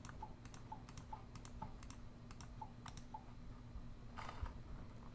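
Faint computer mouse clicks, about three a second, placing the points of a multi-pointed curve in drawing software; they stop a little after three seconds in, and a brief soft noise follows near the four-second mark.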